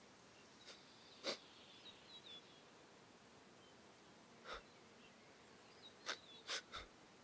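Quiet savanna ambience: faint, high little bird chirps, and a few short soft sounds, the strongest about a second in and three close together near the end.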